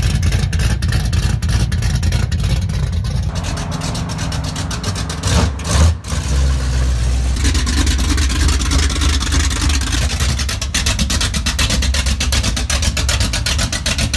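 Dodge Ram pickup's small-block 360 V8 with big ('meaty') cams idling with a crisp, choppy exhaust beat. It is blipped once, swelling louder about five and a half seconds in and dropping back at once.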